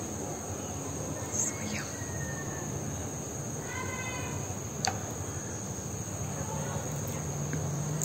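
Insects chirring in a steady, continuous high-pitched drone, with a faint outdoor background hum beneath.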